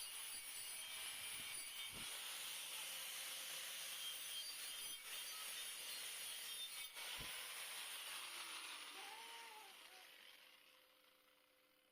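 Stick-welding arc hissing and crackling steadily, with a few sharp clicks, then fading out over the last few seconds.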